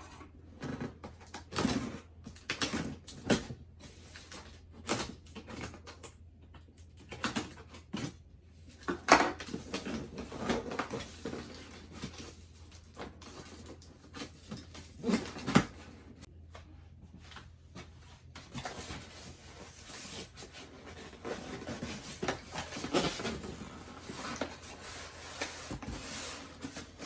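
Cardboard box and packaging being handled during unboxing: irregular knocks, scrapes and rustles, with two sharper knocks about nine seconds in and again around fifteen seconds.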